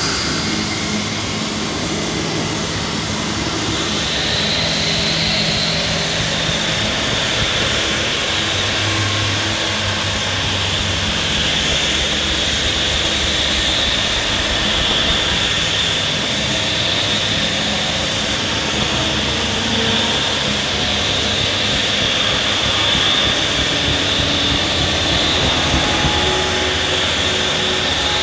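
Abstract experimental electronic noise music: a dense, steady wall of noise with a hissing high band and low droning tones that fade out about ten seconds in.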